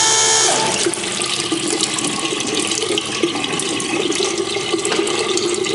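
A small electric transfer pump whines briefly, then water runs from the pump-fed faucet into the plastic utility sink basin, splashing steadily.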